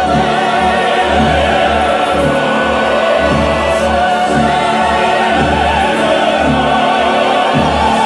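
Opera music: sung voices with wide vibrato over orchestral accompaniment, with sustained bass notes beneath, running without a break.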